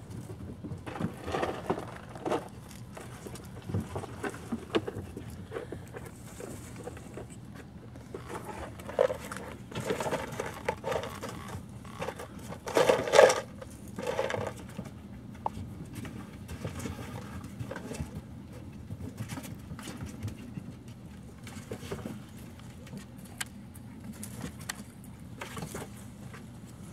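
Puppies, likely miniature Australian Shepherds, play-fighting: scattered short growls and yips with paws scrabbling on a hollow plastic tub, the loudest burst about thirteen seconds in.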